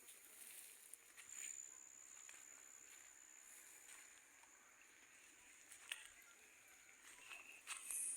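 Near silence: faint outdoor ambience with a thin, steady high-pitched whine and a few soft clicks, the last ones near the end.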